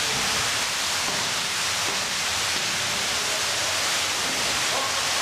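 A steady, even hiss that holds at the same level throughout.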